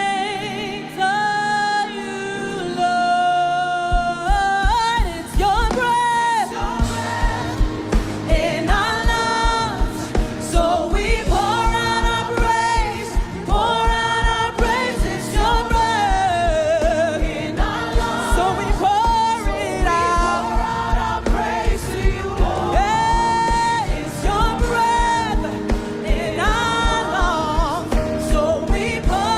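Worship song: singing over a band, with a steady drum beat coming in about four seconds in.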